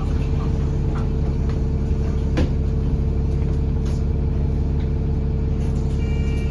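London bus's diesel engine running steadily, heard from inside the passenger saloon, with a few short rattles and clicks from the bodywork.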